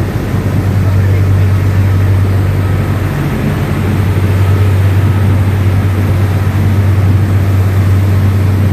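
Boat engines running steadily under way: a loud, constant low drone with a broad rush of wind and water noise over it.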